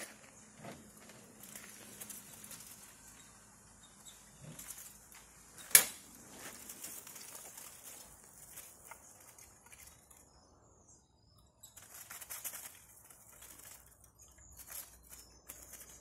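Chopi blackbirds fluttering their wings inside a wire birdcage as it is tilted and shaken to let them out, with rustling and rattling of the cage. A single sharp knock about six seconds in is the loudest sound.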